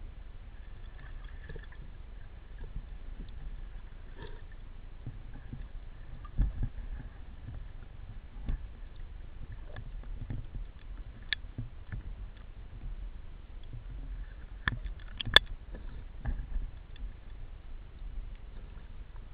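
Water heard underwater: a steady low rumble of moving water with scattered clicks and knocks, the loudest a sharp click about fifteen seconds in.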